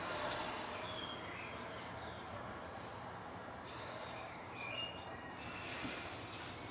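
Steady outdoor background noise with a few short, high bird chirps, a couple about a second in and a few more near five seconds.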